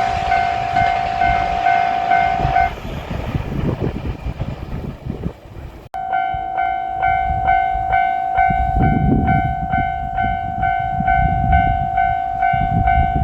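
Japanese railway level-crossing warning bell ringing its rapid, repeating 'kan-kan' over a low rumble. It stops about three seconds in, then starts again abruptly about six seconds in and keeps ringing.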